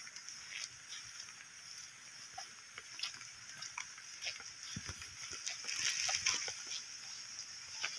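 Footsteps swishing and squelching through wet grass, over a steady high-pitched drone of insects that swells a little about six seconds in.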